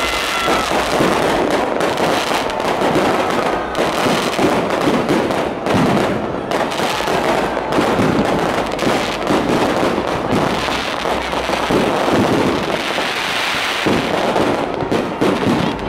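Fireworks bursting overhead in quick succession, making a dense, continuous crackle of sharp pops and bangs.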